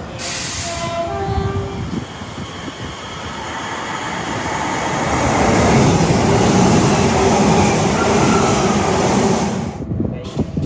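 A train passing at speed, its rushing wheel and body noise building to a loud peak about halfway through and cutting off abruptly near the end. A few short horn notes sound about a second in.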